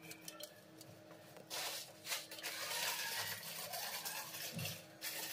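Rubbing and scraping of hand and metal as the nut of a stainless braided flexible connector hose is screwed by hand onto a wall-mounted angle valve, starting about a second and a half in.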